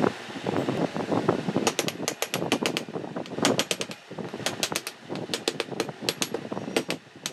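Rapid clicking and metallic clatter as the electric water pump's finned motor housing with its stator is picked up and handled on the workbench, the clicks coming in quick clusters from about two seconds in.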